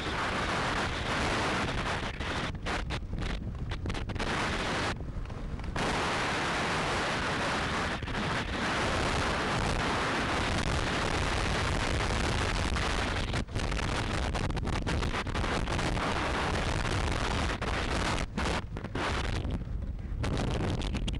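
Wind buffeting the microphone of a camera riding on a wheeled dog-racing cart moving at speed, with the cart's rolling noise underneath: a dense, steady rush that cuts out briefly about five seconds in and again near the end.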